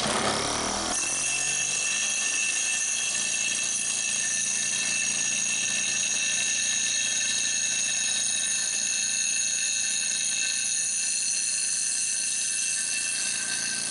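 Bench grinder running with the cut end of a steel pipe held against its stone grinding wheel, trimming off the rough edges. A steady, high-pitched ringing whine of wheel on metal over the motor's lower hum.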